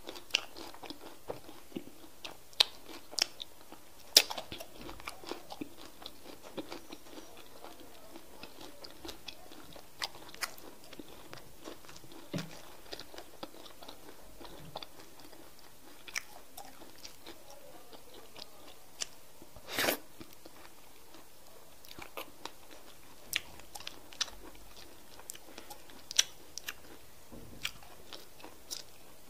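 Close-miked chewing and lip-smacking of a person eating semolina fufu and okra soup by hand, with scattered short, sharp wet mouth clicks and one longer, louder smack about two-thirds of the way through.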